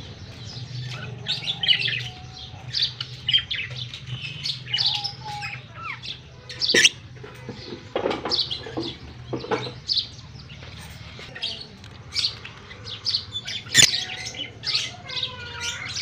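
Lovebirds chirping and squawking in many short, high-pitched calls over a low steady hum, with two sharp clicks, one near the middle and one near the end.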